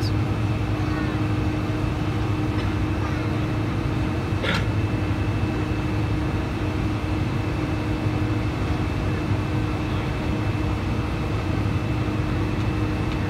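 Steady cabin noise inside a Boeing 747-400 on the ground before takeoff: the jet engines idling with a constant low hum and a thin high whine over the air-conditioning rush. A brief sharp sound about four and a half seconds in.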